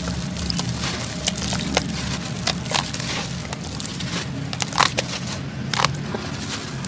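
Dry sand-cement clumps being crushed and crumbled: a run of irregular crackles and crunches, with two louder cracks about five and six seconds in.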